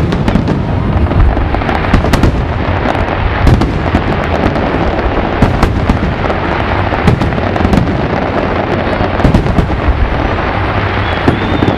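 Aerial fireworks going off in rapid, overlapping succession: a continuous barrage of deep booms and sharp bangs with crackle between them.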